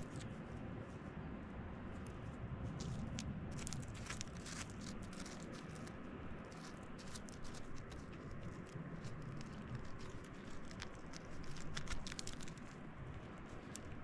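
Digging in a quartz crystal pocket: an irregular patter of small clicks and scrapes as rock fragments and crystals knock and grate together, coming in clusters with the loudest knock near the end.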